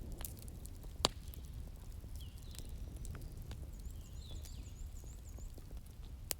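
Wood fire in a fireplace crackling, with scattered small snaps and two sharp loud pops, one about a second in and one near the end, over a steady low rumble. Faint high chirps come and go in the middle.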